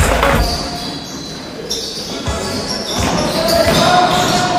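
Live basketball game sound in a large, echoing gym: a basketball bouncing on the wooden floor and players' voices calling out.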